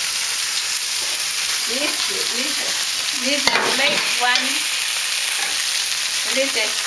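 Food sizzling steadily in hot oil in a wok as it is stirred with a metal ladle, with one sharp click about three and a half seconds in.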